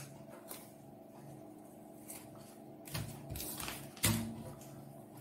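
Paper pattern pieces rustling as they are handled on a table, in short bursts during the second half, with one sharp knock about four seconds in.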